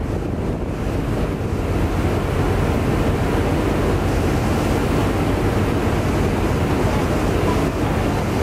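Steady wind rushing over the microphone on a moving ferry's open deck, mixed with the rush of water along the hull; it grows a little louder about two seconds in.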